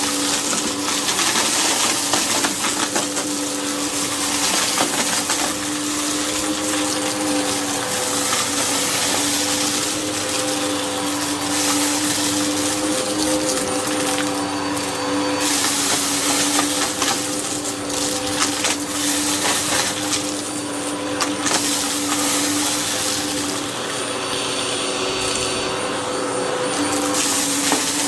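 Hoover vacuum cleaner running over a rug: a steady motor hum under rushing suction, with a continual crunch of grit and debris being picked up from the pile.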